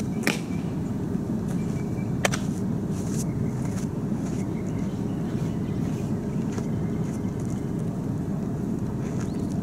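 Steady wind rumble on the microphone, with sharp smacks of a softball into a catcher's mitt: one right at the start and another about two seconds in.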